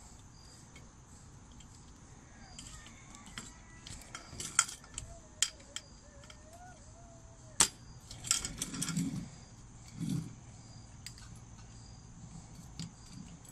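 Aluminium poles of a folding camping table frame clicking and knocking as a pole is pushed into its plastic connector: a few scattered sharp clicks, the loudest about halfway through, then a short clattering rattle and one more knock.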